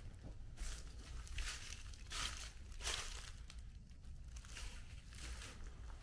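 Footsteps crunching over dry leaf litter and debris at an even walking pace.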